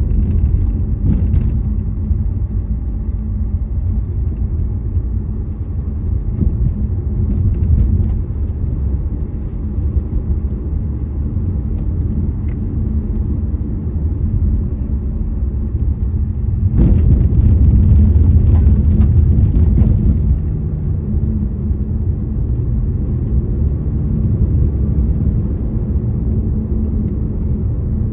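Car driving on the road: a steady low rumble of engine and tyres. About 17 seconds in, a louder, hissier stretch lasts about three seconds before the rumble settles back.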